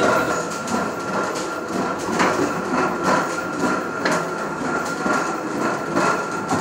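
Machinery of a working traditional windmill turning: a steady rumble from the millstones, with irregular wooden knocks about once a second.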